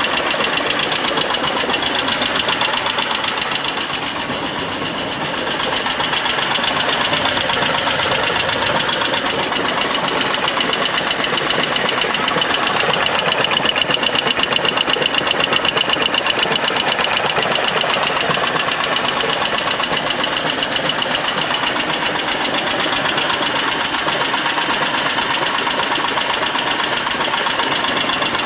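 The engine of a Mazda T600 three-wheeled truck, an air-cooled V-twin, running steadily with a fast, even beat, its level dipping briefly about four seconds in. It runs freshly rebuilt with a homemade copper head gasket, the gasket leak cured and no oil leaking.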